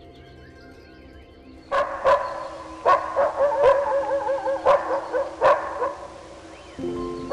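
A dog barking about six times, starting a little under two seconds in, with wavering whines between the barks, over soft background music.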